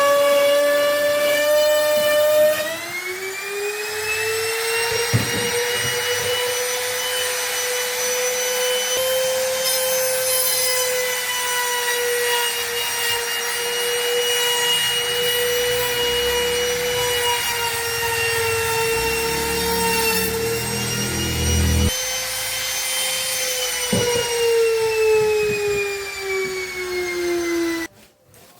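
High-speed electric power tool cutting wood, its motor whining at a steady high pitch. The pitch sags briefly under load, falls near the end, and the sound cuts off suddenly.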